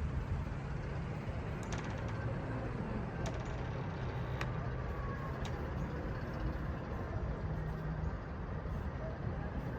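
Steady outdoor background noise with a low mechanical hum and a few faint clicks.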